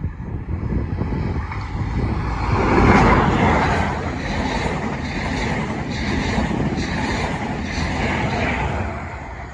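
Network Rail New Measurement Train, an HST with Class 43 diesel power cars, passing close at speed. The leading power car's engine is loudest about three seconds in, then the coaches' wheels clatter over the rails at about one and a half beats a second, fading near the end.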